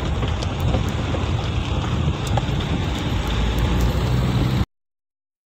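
Heavy rain pouring down, a steady hiss with scattered sharp drop ticks over a low rumble. Near the end it cuts off suddenly.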